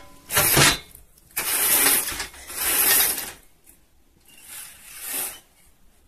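Zebra-type roller blind being raised, its mechanism rattling in four separate pulls.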